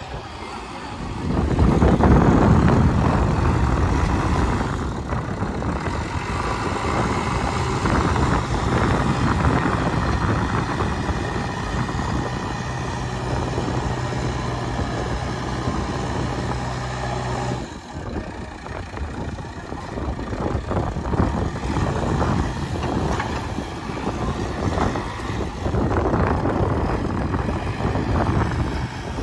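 JCB backhoe loader's diesel engine working under load while the front bucket pushes soil. It revs up about a second and a half in and holds a steady note, breaks off abruptly just past halfway, then runs on with rising and falling revs.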